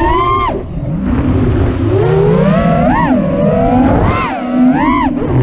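Five-inch 6S FPV quadcopter's Stout brushless motors and Ethix props whining with throttle. The pitch drops sharply about half a second in as the throttle is cut, then climbs back and swells and falls in two surges, with wind rushing over the onboard camera's microphone.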